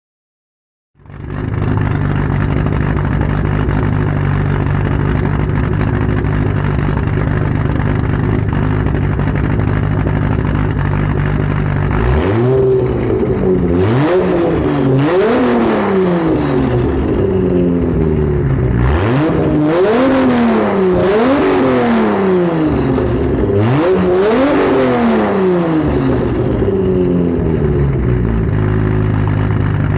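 Toyota Supra Mk4's turbocharged JZ inline-six with an aftermarket turbo exhaust setup. It comes in about a second in, idling steadily. From about halfway through it is blipped through a series of quick revs, each rising and falling, and then it settles back to idle near the end.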